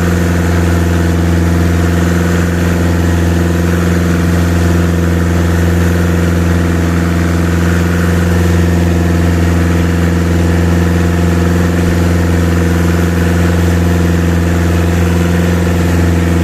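Boat engine running steadily at a constant speed, loud and unchanging in pitch.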